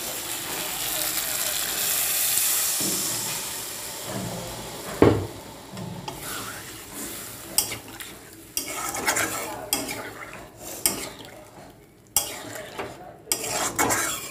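Water poured into a hot kadai of fried spice paste and potatoes, hissing and sizzling loudly for about four seconds before dying down. A single sharp clank about five seconds in, then a spoon stirring the watery curry, clicking and scraping against the pan.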